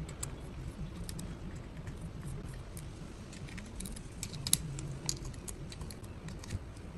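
Small steel clutch parts clicking and clinking against each other and the clutch hub as they are handled and set in place by hand, in scattered light taps, with one sharper click about four and a half seconds in.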